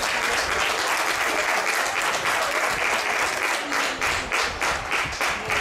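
Spectators clapping and applauding at a youth football match, thinning to more scattered claps near the end.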